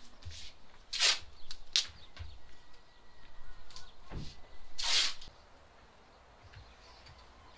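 Paper template and vinyl flooring being handled, rustling and scraping in a few short bursts, the longest and loudest about four to five seconds in.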